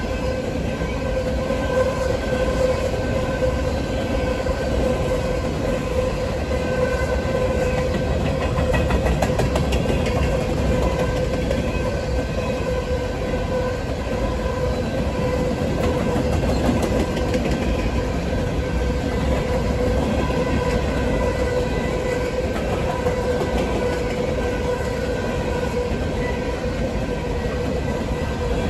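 Covered hopper cars of a freight train rolling past at steady speed: a continuous rumble of wheels on rail with some clickety-clack over the joints. A steady ringing tone sounds over it the whole time.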